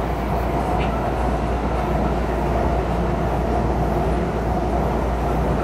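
Miami Metrorail Hitachi railcar running at speed, heard from inside the car: a steady rumble of wheels on rail with an even hum.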